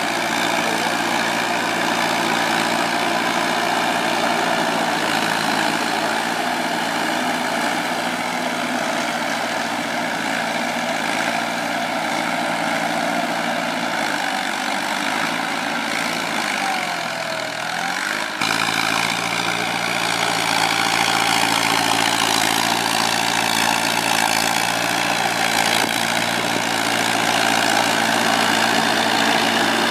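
Kubota tractor's diesel engine running steadily while it turns a rotary tiller through the flooded paddy mud. Its pitch sags for a few seconds past the middle, then the tone changes suddenly.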